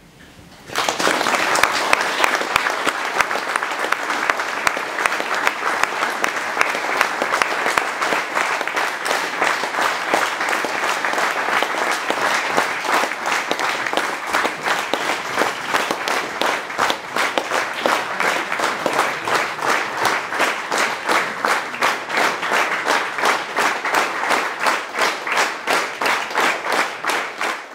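Audience applauding, starting about a second in; in the second half the clapping falls into a steady rhythmic clap in unison.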